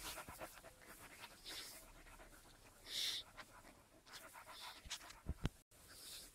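Skye Terrier puppies panting faintly in short breathy bursts, with two soft thumps a little over 5 seconds in.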